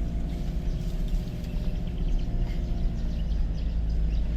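Two-wheel-drive Toyota HiLux running over a rough dirt track, heard from inside the cab: a steady engine and road rumble with faint rattles and ticks from the body jolting over the bumps.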